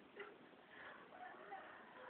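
Near silence: a single faint click just after the start, then faint, scattered short tones in the background.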